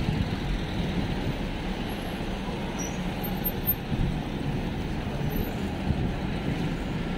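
Steady city-street traffic noise: a continuous low rumble of passing road vehicles.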